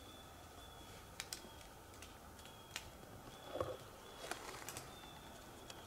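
Quiet woods with a handful of faint, sharp clicks and snaps scattered through, the loudest about three and a half seconds in together with a short rustle. A faint high steady tone comes and goes.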